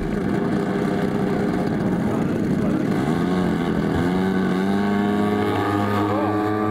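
Engines of two radio-controlled Junkers Ju 87 Stuka scale models running on the take-off roll, the engine note climbing as the throttles open about three seconds in, then holding at a higher, steady pitch.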